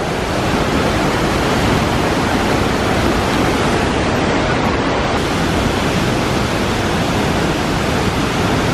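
Waterfall and river rapids rushing: a loud, steady wash of falling and churning water.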